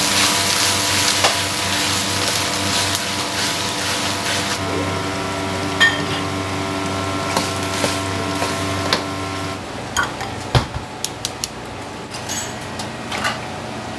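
Food sizzling and being stirred in a wok for the first four and a half seconds or so, over a steady kitchen hum. The sizzle then drops away, and in the last few seconds come several sharp clinks and knocks of utensils against pans and dishes.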